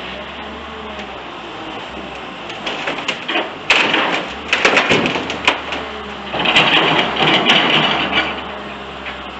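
Urban background noise: a steady low mechanical hum. A few seconds in comes a run of sharp clattering knocks and rattles, then a loud hissing rush that fades near the end.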